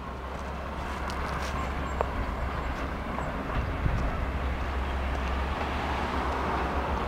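Road traffic on a two-lane highway: a car's tyre and engine noise slowly growing louder as it approaches, over a low steady rumble.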